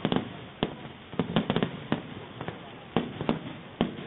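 Fireworks going off: sharp bangs and pops at uneven intervals, some in quick clusters of three or four.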